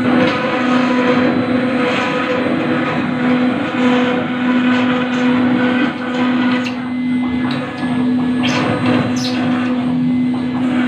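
CNC router spindle running steadily while its bit cuts into granite: a constant motor whine over a rough grinding noise, with a few short higher scraping sweeps near the end.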